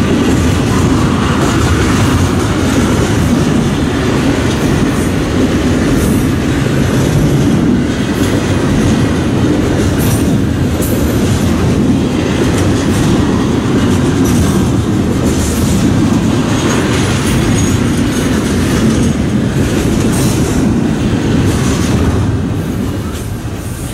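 Intermodal freight cars rolling past close by: a steady loud rumble of wheels on rail with scattered clickety-clack from the wheels over the rail joints, easing a little near the end.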